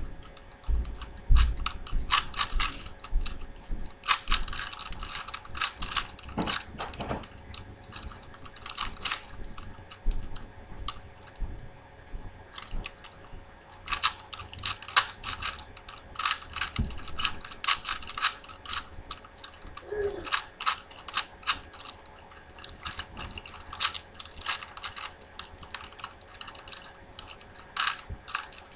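Plastic 4x4x4 Rubik's cube being turned, rapid clicking in quick bursts with short pauses between them.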